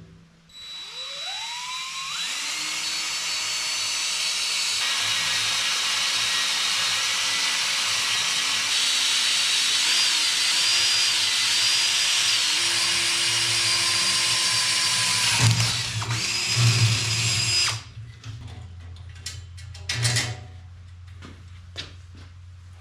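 An electric power tool motor spins up with a rising whine, runs steadily with a few brief dips in pitch, and shuts off about 18 seconds in. A few quieter knocks follow.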